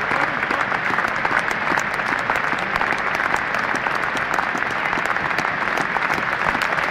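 Football stadium crowd applauding steadily, with sharper single claps from the two teams' players lined up clapping close to the microphone.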